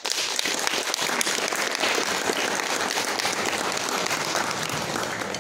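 Audience applauding steadily, many hands clapping at once, for a finished stage performance.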